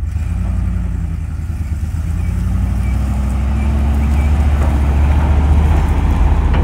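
Old Dodge truck's V8 engine idling with a steady low rumble that grows louder over the few seconds.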